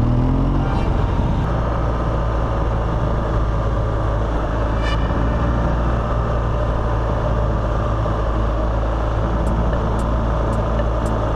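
BMW GS Adventure motorcycle's boxer-twin engine running at a steady speed under way, over a steady rush of wind and tyre noise, with a few light ticks near the end.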